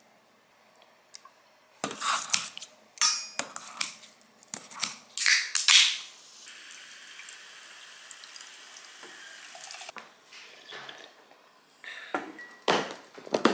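Aluminium soda can handled and cracked open with a run of sharp clicks and snaps, followed by a steady fizzing hiss of carbonated soda for about four seconds. A few knocks and clinks of dishes come near the end.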